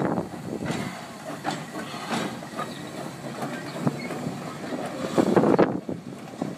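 Steam-hauled train running on the rails, with irregular clacks and knocks from the wheels and a louder surge about five seconds in.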